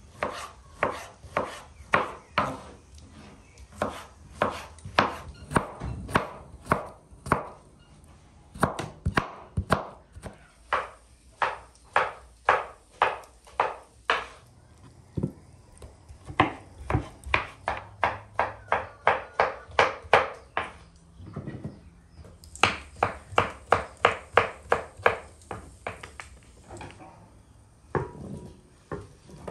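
Kitchen knife chopping pineapple on a wooden cutting board: runs of sharp, even knocks, about two to three a second, with short pauses between runs. The chopping stops shortly before the end.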